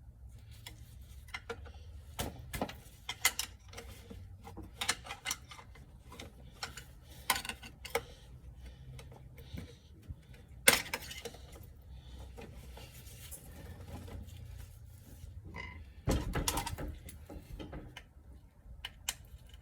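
Hand tools clicking, tapping and knocking irregularly on metal parts inside an automatic transmission case as a stuck band anchor is worked at. One louder strike comes about eleven seconds in, and a busier patch of knocking follows around sixteen seconds.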